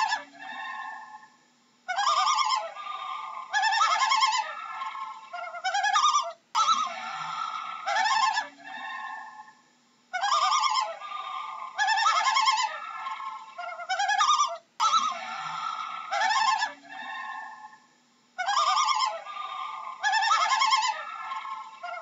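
Common loon calling: a string of quavering, rapidly pulsed calls, several in every few seconds, with short gaps between the runs.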